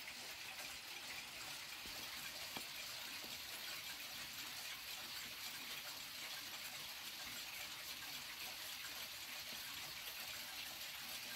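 Steady faint hiss of background noise, with a single faint click about two and a half seconds in.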